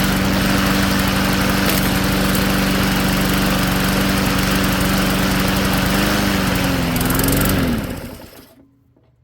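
Gas lawnmower engine running steadily at speed, rising slightly in pitch, then shut off about eight seconds in, winding down to silence.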